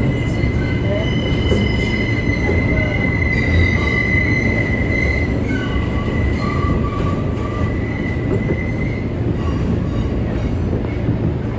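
R143 subway train running, with a steady rumble of wheels on rail and a high-pitched wheel squeal that holds for most of the time, loudest in the middle and fading out near the end.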